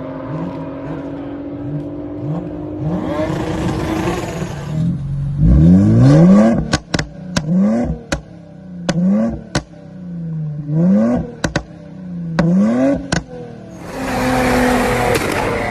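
Infiniti Q60S engine and exhaust on a crackle tune: a steady engine note slowly climbing, then about six quick throttle blips, each rev rising sharply and dropping away with a volley of sharp pops and cracks as the throttle closes. A rushing surge of engine noise comes in about three seconds in and again near the end.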